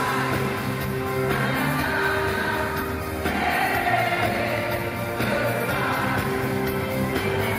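Live pop music with sung vocals over a band, playing steadily.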